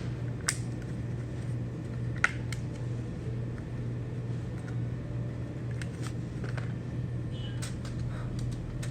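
Small sharp clicks and ticks of a laptop RAM module being handled and seated into its memory slot: one click about half a second in, two close together a little after two seconds, then lighter ticks near the end, over a steady low hum.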